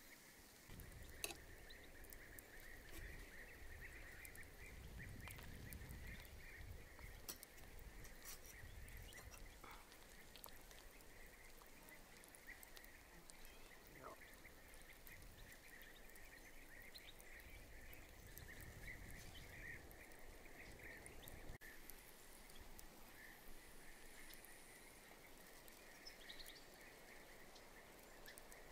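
Near silence: faint forest ambience carried by a steady, high, fluttering chirring of insects, with scattered faint clicks and a low rumble that fades out about 22 seconds in.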